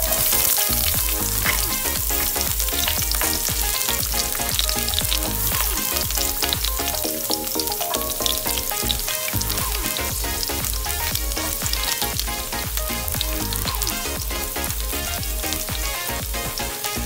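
Sliced garlic sizzling in hot oil in a stainless steel pot. The sizzle starts suddenly as the garlic goes in and then stays steady, with music playing underneath.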